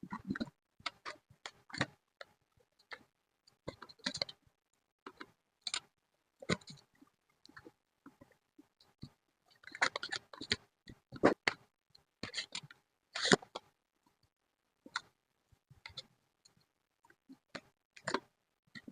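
Irregular taps, clicks and short rustles of paper and craft supplies being handled while scrapbooking, with brief pauses between them and a busier patch past the middle.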